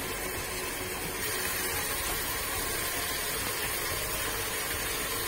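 Fried onions and a freshly added ginger-garlic-mint-coriander paste sizzling steadily in hot oil in a metal pot.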